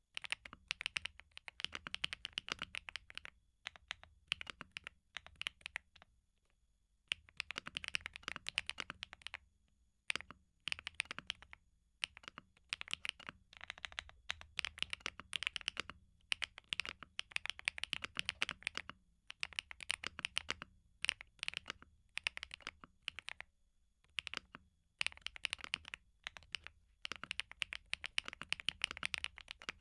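Typing on a KeebMonkey x PMO P75 75% mechanical keyboard with polycarbonate keycaps: fast runs of key clicks broken by short pauses, with one longer quiet stretch about five seconds in.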